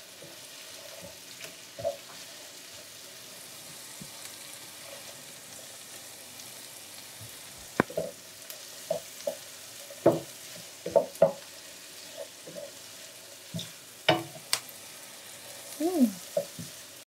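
Sliced onions sizzling steadily in butter in a frying pan as they sauté toward golden brown. From about halfway in, a wooden spatula knocks and scrapes against the pan as they are stirred.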